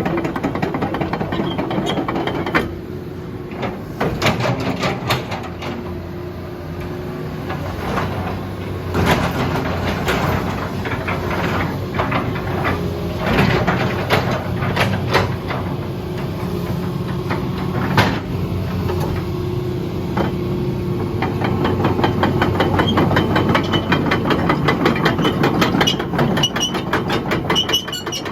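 Hitachi EX210K-5 excavator working, its Isuzu 6BG1 six-cylinder diesel running steadily under many sharp metal clanks and knocks from the moving machine. The engine gets louder about three quarters of the way through.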